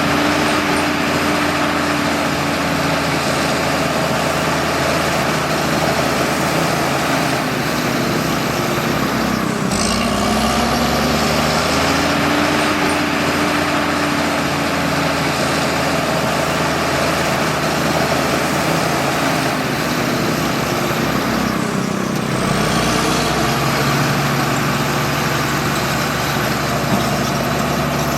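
Bulldozer's diesel engine running hard with track clatter as it pushes soil, the engine note dipping and changing pitch twice as the load shifts.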